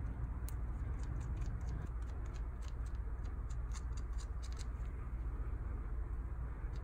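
Faint, irregular small clicks and ticks of gloved fingers smearing lube onto the aluminium crankcase's gasket surface, over a low steady hum.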